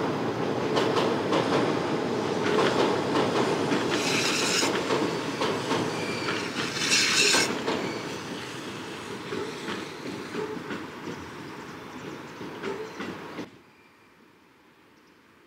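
A train crossing an elevated railway bridge overhead: wheels clattering over the rail joints, with brief high wheel squeals about four and seven seconds in. The sound fades as the train moves away, then drops off sharply near the end.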